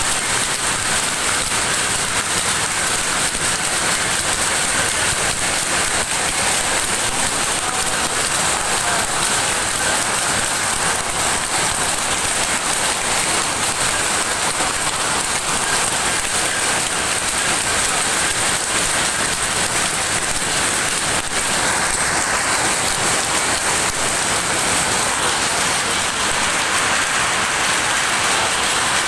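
Many powerlooms running together in a weaving shed: a loud, dense, unbroken clatter of the looms' sleys and reeds beating up the weft.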